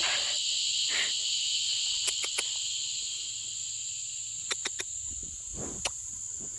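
A steady, high-pitched insect chorus, typical of crickets, with a few short sharp clicks in quick groups of three about two seconds in and again near the end.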